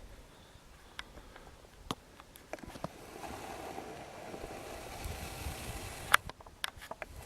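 A vehicle engine's noise swells about three seconds in and cuts off sharply near the end, among scattered clicks and knocks.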